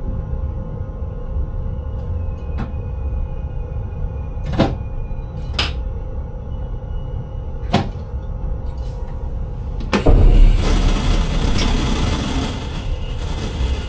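Steady low rumble of a train heard from inside the driver's cab, with a few sharp clicks of the wheels over the track. About ten seconds in, a loud rushing hiss starts suddenly and runs for a few seconds.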